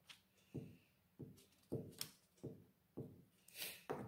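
Hands pressing and smoothing paper pattern pieces and tape on a wooden tabletop: a run of soft rubs, about two a second, with a crisper paper rustle near the end.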